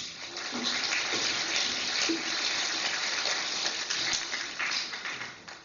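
An audience applauding, the clapping swelling within the first second and dying away near the end.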